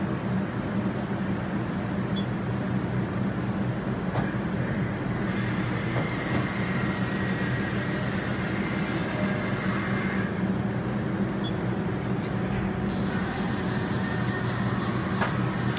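Steady low hum of running machinery, with a couple of constant pitched tones. A high hiss comes in about five seconds in, stops about five seconds later, and returns near the end.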